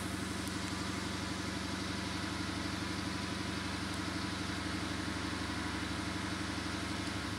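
Lexus IS F's 5.0-litre V8 idling steadily, heard from inside the cabin.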